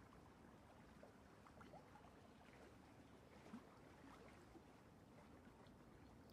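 Near silence: a faint steady hiss with scattered tiny clicks and blips, one slightly louder about three and a half seconds in.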